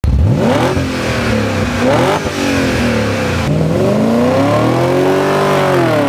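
BMW 740i's V8 engine revving hard, its pitch rising and falling several times as the car is driven on loose dirt, with a broad hiss of tyres and flung dirt underneath.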